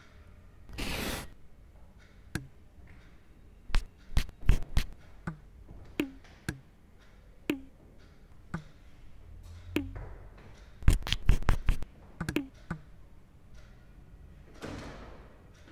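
Sound effects of sharp taps and knocks, some with a short falling tone after the hit, spaced irregularly, with a quick run of knocks a little after the middle. A brief swish comes about a second in and another near the end.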